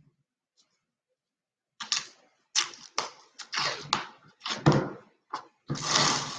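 A silkscreen transfer and squeegee being worked on a chalk board: a run of short scrapes and taps starting about two seconds in, then a continuous scraping rub near the end.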